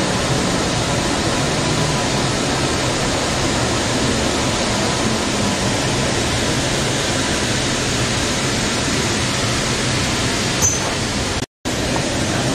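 Steady running noise of a Central Link light rail car at speed, heard from inside the cabin: an even rushing rumble of wheels on rail and air. Near the end the sound cuts out completely for an instant.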